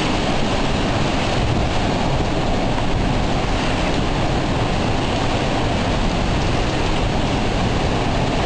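Hurricane-force wind and driving rain blowing steadily, with heavy gusting wind buffeting the microphone.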